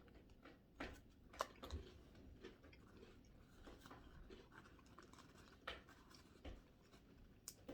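Faint chewing and biting of a cookie, with scattered soft crunches and clicks a second or so apart.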